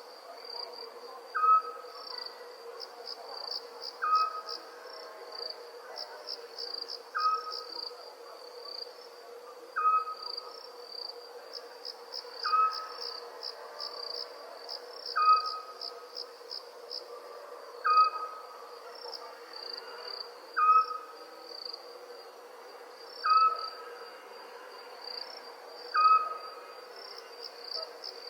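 Crickets chirping steadily in pulsing trills, while an owl gives a short, slightly falling call over and over, about every two and a half to three seconds. A steady faint drone runs underneath.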